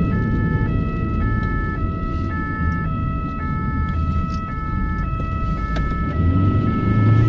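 Ambulance siren on an emergency run, heard from inside the cab, switching between a high and a low tone about every half second. Road and engine rumble runs beneath and grows louder near the end.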